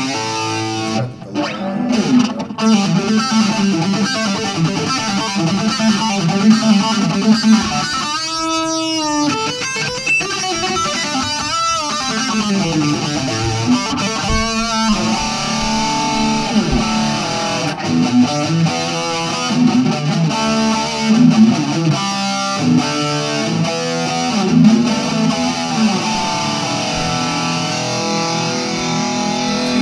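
Electric guitar played through a Roland Cube 20X practice amp on its distorted metal stack amp model with a touch of chorus. Continuous chords and sustained, ringing notes.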